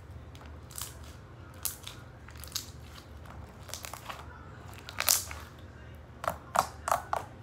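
Slime being stretched and pressed by hand against a plastic tabletop, giving a string of short sticky clicks and pops, the loudest about five seconds in and a quick run of four near the end.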